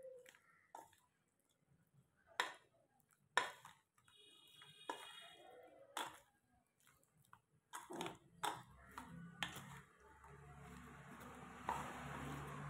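Spoon stirring raw chicken pieces in a floury, wet marinade in a stainless steel bowl: faint squelching with scattered sharp clicks and knocks of the spoon against the bowl, and a brief ringing ping about four seconds in.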